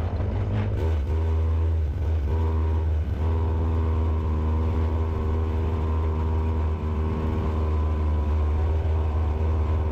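Small two-stroke chainsaw engine, with an oversized carb, a ported muffler and no governor, running at high revs and pushing a go-kart at a steady pitch. The engine note dips briefly twice, about two and three seconds in.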